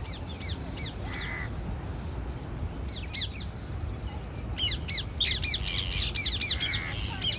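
A flock of green parakeets screeching from a treetop. A few harsh calls come at the start and a short burst about three seconds in, then a dense run of rapid calls through the second half.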